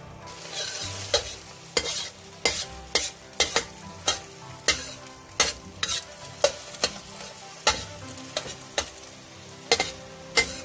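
Beaten eggs sizzling in a hot metal wok as a metal spatula stirs and scrambles them, clacking and scraping against the pan about every half second to second.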